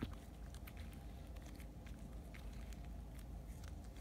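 Clay slime being stretched and pulled off a tabletop by hand, giving a scatter of faint sticky clicks and small pops over a low steady hum.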